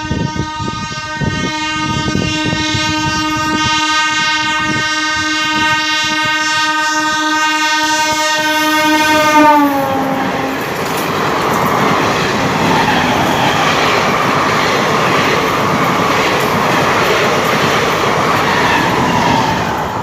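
DEMU diesel multiple unit train sounding one long horn blast, held for about nine and a half seconds over the clatter of wheels on rail joints; the horn's pitch drops as the cab passes. Then the coaches rush by close, with a steady rumble and clatter of wheels on rail.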